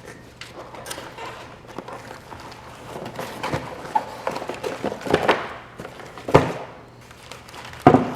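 Handling noise from boxed door-closer parts and packaging being moved about: small clicks and rustling, with a few sharper knocks later on as pieces are set down.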